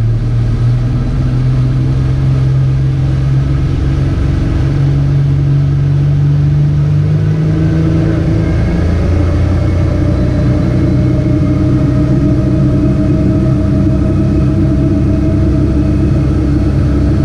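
Boat engine running steadily under way, a continuous hum with its note shifting slightly about halfway through.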